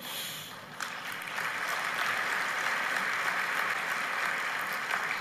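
A large audience applauding, swelling about a second in and then holding steady.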